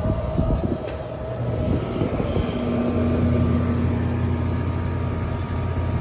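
Outdoor condensing unit of a central air conditioner running after start-up: compressor hum and condenser fan, settling into a steadier low hum about three seconds in. The R-410A system is running slightly undercharged.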